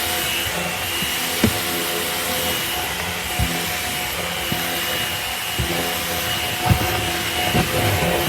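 Milwaukee M18 FUEL 9-gallon dual-battery wet/dry vac running steadily with a brush-roll power head, a constant motor whine with a few short knocks as the head is worked.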